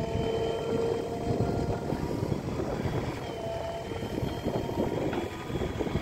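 JCB 3DX backhoe loader's diesel engine running steadily under load while the backhoe arm digs and lifts a bucket of soil, with a faint thin whine over it for the first couple of seconds.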